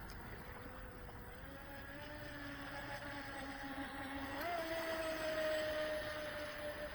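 Pro Boat Recoil 2 RC boat's brushless electric motor whining as it runs on the water some way off. The pitch jumps up about four and a half seconds in as it speeds up, then slowly sinks.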